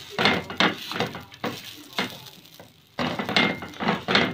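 A heavy cast-iron frying pan is turned back and forth by hand on a gas stove's metal grate, making a run of scraping knocks. The knocks come in two spells with a lull near the middle. The pan is rotated so the flatbread inside cooks evenly.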